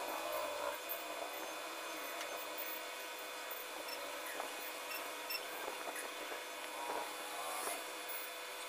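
Pencil scratching on drawing paper in short, irregular shading strokes, over a steady background hum.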